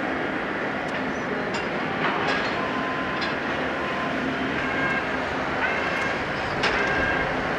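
Boeing 747-200F freighter's four turbofan engines running at taxi power, a steady rumble and whine. A few short high tones come through about five and seven seconds in.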